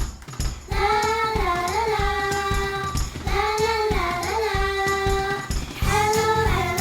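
A children's hello song: a high voice sings a simple melody of held notes over a steady bass-and-drum beat, the singing coming in about a second in.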